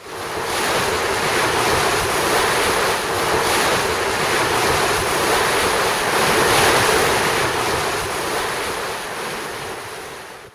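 Wind buffeting the microphone over open sea, with the wash of choppy water. It fades in at the start, eases down toward the end and then cuts off.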